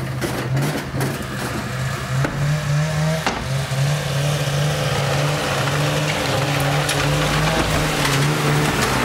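Snowmobile engine running steadily with small changes in pitch as the sled is driven up a ramp into an enclosed trailer.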